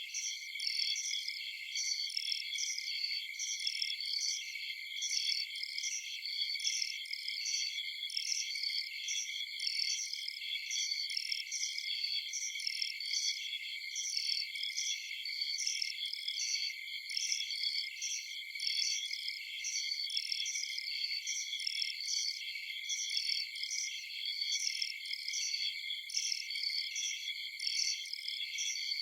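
Chorus of night crickets chirping, several high-pitched steady trills layered with a regularly pulsing call that repeats without a break.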